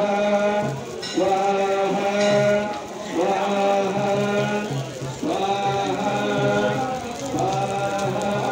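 Devotional chanting in repeated phrases of held notes, one about every two seconds, over a continuous low drone.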